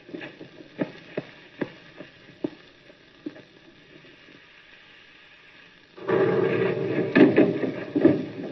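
Scattered sharp cracks of gunfire, about half a second to a second apart, over the hiss of an old film soundtrack; about six seconds in, a much louder, dense noise with repeated blasts sets in.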